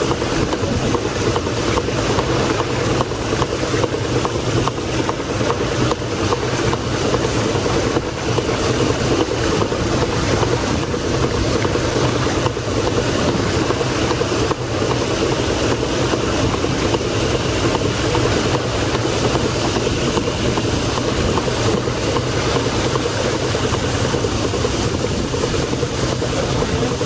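1902 Toledo steam carriage engine running steadily, driving a steam launch, with a fast, even beat.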